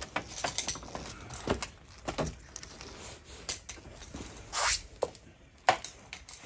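Irregular clicks, taps and light metallic knocks of hand tools being handled on a car's engine, mixed with clothing rustle, and one louder scrape about four and a half seconds in.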